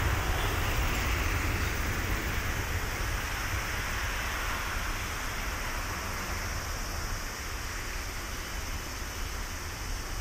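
Jet noise from a taxiing Airbus A330-300's Rolls-Royce Trent 700 engines: a steady rushing roar with a deep low rumble, slowly fading as the airliner rolls past.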